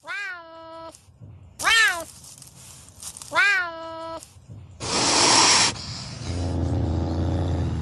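Serval giving three short meow-like calls, each rising and then falling in pitch. A loud, harsh hiss-like rasp follows about five seconds in, then a rougher, steadier noise.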